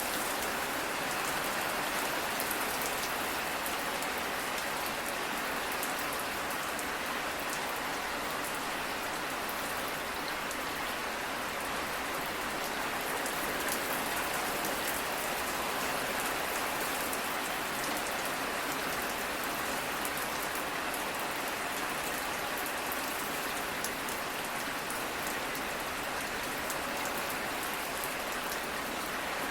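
Steady rain falling, an even hiss with fine drops pattering on a surface.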